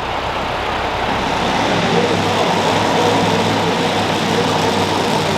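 Super modified two-wheel-drive pulling truck's engine running hard, growing louder over the first two seconds and then holding steady.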